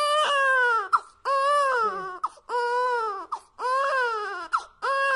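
A high, childlike voice crying in long wails, about five in a row with short breaks, each one falling away in pitch at its end.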